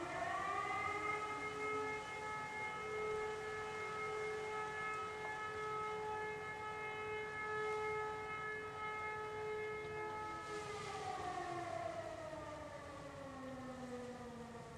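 Motor-driven civil-defence siren winding up, holding one steady tone for about ten seconds, then winding down with a slowly falling pitch. One tone of a fire-brigade call-out alarm.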